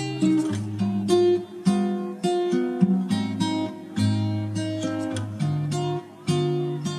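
Background music: acoustic guitar playing a run of plucked notes, each fading before the next.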